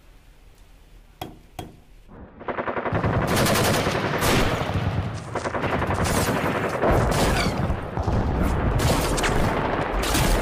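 Sound effect of rapid machine-gun fire in one long continuous burst, starting about two seconds in, laid over a channel intro. Before it come two faint clicks.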